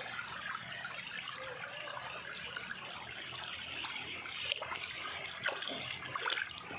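River water rushing and trickling over rocks, a steady rush, with a few short sharp clicks in the second half, the loudest about four and a half seconds in.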